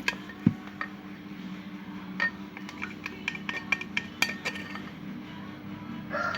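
A stirrer clinking and scraping against the side of a bowl as egg white and dish soap are stirred, in irregular small clicks, over a steady low hum.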